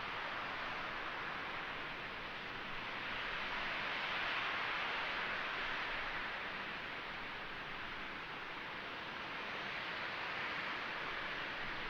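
RS-25 liquid-fuelled rocket engine firing on a test stand, heard at a distance as a steady rushing roar that swells a little about four seconds in.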